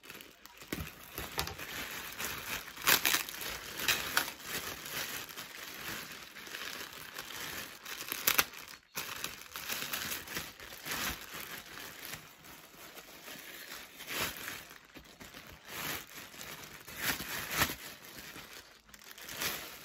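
Plastic packaging crinkling and rustling irregularly as it is handled and pulled open by hand, with a few sharper, louder crackles.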